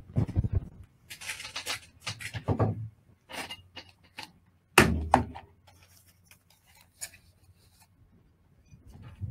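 Handling noise from studio equipment near the microphone: irregular clicks, rustles and knocks, with one loud thump about five seconds in.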